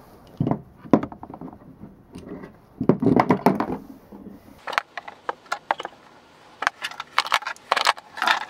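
Chess pieces clicking and knocking against each other and the wooden board as they are picked up by the handful and cleared away: scattered clacks, a busier cluster about three seconds in, then a quick run of sharp clicks.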